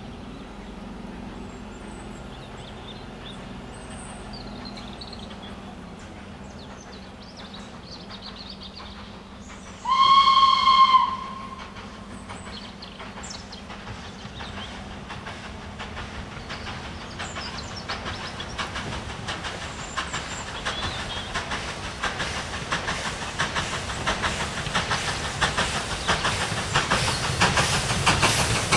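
A steam locomotive sounds one short whistle blast about ten seconds in, the loudest thing heard. It then comes into earshot working hard, its exhaust beats and the rumble of its train growing steadily louder as it approaches.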